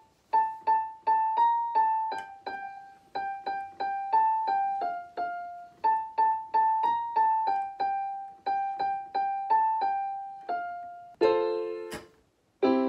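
Keyboard with a piano sound, playing a single-note melody at about three notes a second, then two full chords near the end. The tune is being picked out by ear, guessed at without sheet music.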